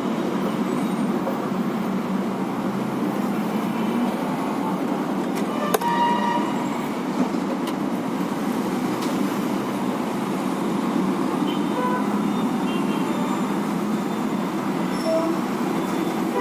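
Steady background traffic noise with a few short, faint horn toots, and a couple of light clicks about six and eight seconds in.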